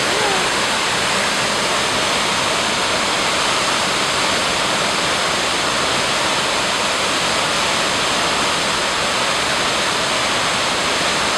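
Waterfall in full flood after days of steady rain: a steady, loud rush of falling water that never lets up.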